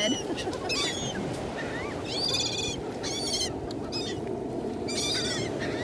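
Seagulls calling in repeated bursts of short, arching cries, several gulls at once, over a steady low background rush.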